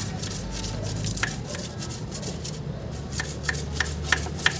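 Light, sharp metallic clicks as a thin metal rod is poked into the tubes of a radiator core to clear them out: one about a second in, then about three a second in the second half. A steady low hum runs underneath.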